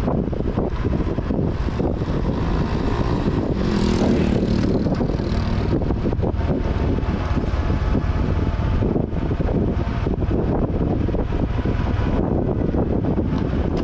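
Honda XRM 125 Fi's single-cylinder four-stroke engine running steadily as the motorcycle rolls downhill, with wind buffeting the microphone. The sound swells briefly about four seconds in.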